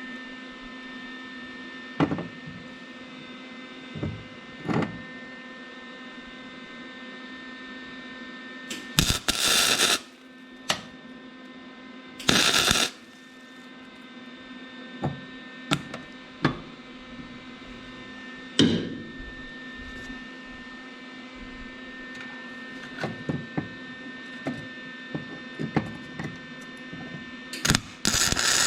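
Electric welder plug-welding sheet metal in short bursts of about a second each: twice near the middle and once near the end, welding a new accelerator pedal hinge onto a fresh floor pan through two small holes. Between the bursts there is a steady electrical hum and scattered clicks.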